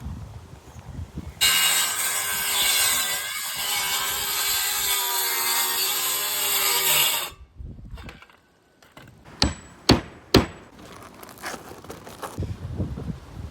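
Electric power saw cutting through wood sheathing, a loud steady whine for about six seconds that sags slightly in pitch under load and then stops abruptly. A few seconds later come three sharp knocks, close together.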